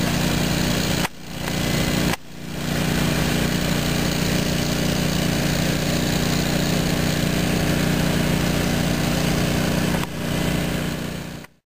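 A fire engine's motor runs steadily at pumping speed while it feeds the hose, a constant engine drone that briefly drops out a few times and fades away at the end.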